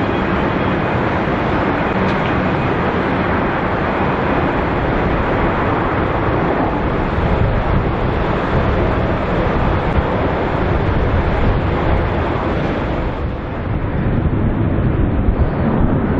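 Airbus A330 twin-engine jet airliner landing: a loud, steady rush of jet engine noise. About 13 seconds in it cuts to another airliner landing, with more low rumble and less hiss.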